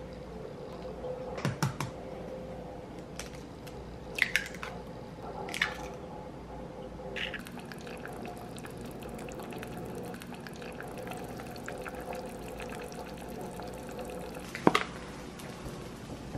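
Kitchen cooking sounds: a steady low hum with a faint crackle, broken by several sharp clicks and knocks of utensils against dishes, the loudest one near the end.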